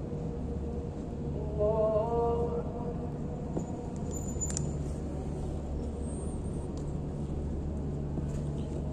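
An imam's voice over the mosque loudspeaker chants a short, drawn-out takbir ('Allahu akbar') about a second and a half in, marking a move between prostrations. A steady low hum lies under it, and a faint click comes near the middle.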